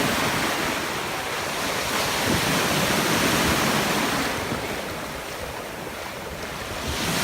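Ocean surf breaking and washing up the beach, rising and falling with the waves, with wind buffeting the microphone.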